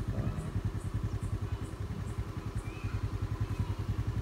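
A vehicle engine idling steadily, a rapid low pulsing. Faint high chirps repeat about twice a second through the first half.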